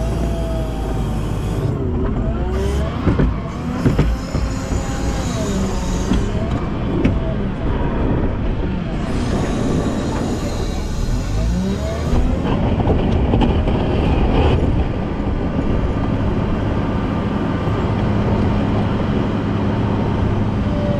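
Volvo L90F wheel loader's diesel engine revving up and down as it works, with a few sharp knocks about three to four seconds in.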